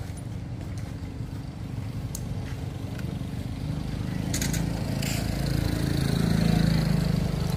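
A motor vehicle's engine running steadily with a low hum, growing louder over the last few seconds.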